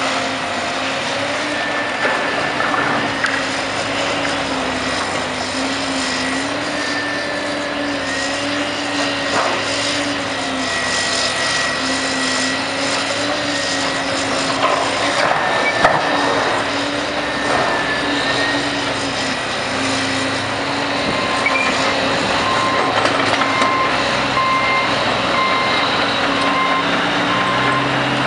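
John Deere excavator's diesel engine running, its pitch rising and falling under hydraulic load as the demolition grapple works, with knocks and crashes of breaking debris, the loudest about halfway through. In the last several seconds a backup alarm beeps at an even pace.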